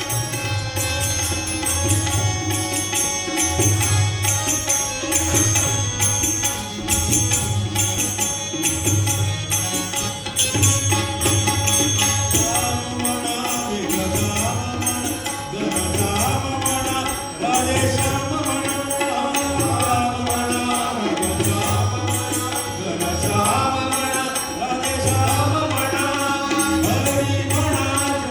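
Background music with a repeating low beat; a wavering melodic line comes in about halfway through.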